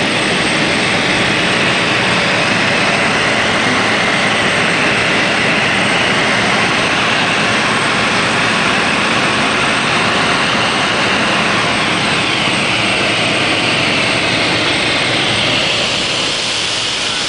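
Cabin noise of a high-wing light propeller aircraft in a steep descent to land: the engine, propeller and rushing air make a loud, steady drone. Near the end the tone shifts a little and the noise eases slightly.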